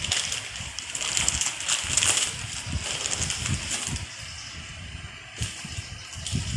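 Newspaper and plastic wrapping rustling and crinkling as wrapped items are pulled out of a cardboard box, loudest about a second or two in, with soft low bumps from the handling.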